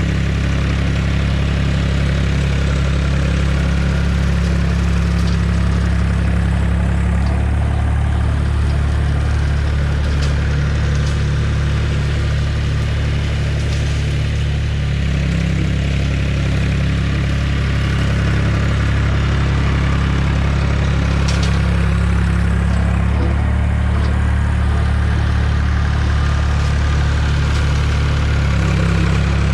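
Diesel tractor engine running steadily, with a few light ticks now and then.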